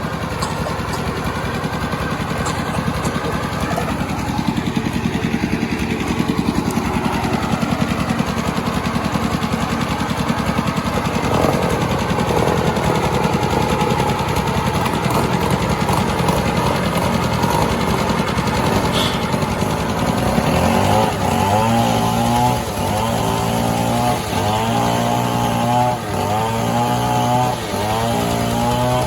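Chainsaw engine running at high revs. About two-thirds of the way in, its pitch starts to rise and fall in a repeating pattern every second or two.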